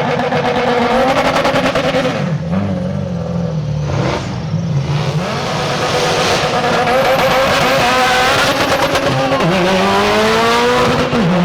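High-performance car engine revving up and down, then accelerating hard with its pitch climbing and dropping sharply twice near the end at gear shifts: a drag-strip pass.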